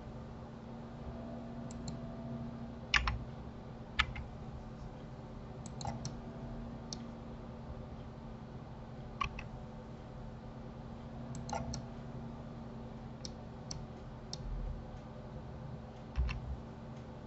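Irregular clicks of a computer mouse and keyboard, about a dozen scattered short clicks, over a steady low hum.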